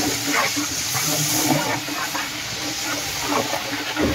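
Mint and coriander leaves sizzling in hot ghee and oil in a large biryani cooking pot, a steady hiss with steam rising, while a long metal ladle stirs them.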